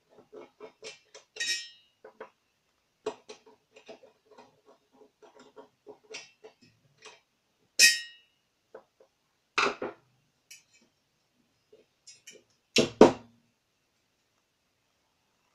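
Small clicks and ticks of a screwdriver backing brass screws out of a brass bulkhead light fixture, with a ringing metal clink about halfway through and a pair of louder knocks near the end as the brass cage cover is handled.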